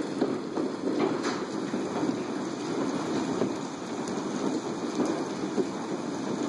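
Large hailstones, about an inch and a half across, pelting a house and the ground in a dense, steady clatter of hits, with a few sharper knocks standing out.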